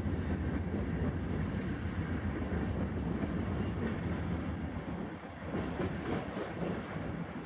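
Freight train of loaded tank cars rolling past, steel wheels running steadily on the rails.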